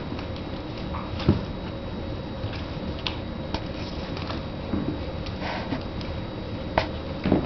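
Six-week-old border collie puppies jostling and nursing on their mother: scuffling and snuffling with scattered small clicks and knocks, and a soft thump about a second in.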